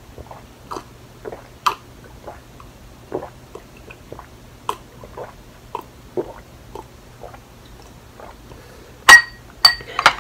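Close-up chewing: soft, short mouth sounds about every half second. Near the end, two loud ringing clinks as a glass mug is set down on a wooden tray.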